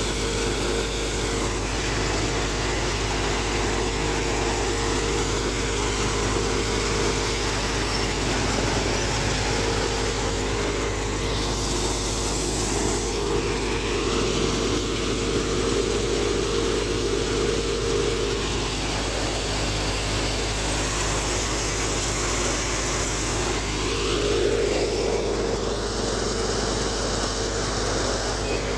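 Wheat threshing machine running steadily under load as sheaves of wheat are fed into it: a constant mechanical hum over a wide rushing noise.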